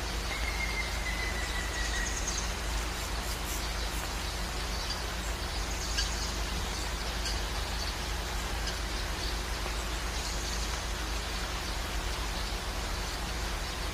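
Sabayad flatbread frying in a nonstick pan: a steady sizzling hiss, with a light click of the spatula against the pan about six seconds in.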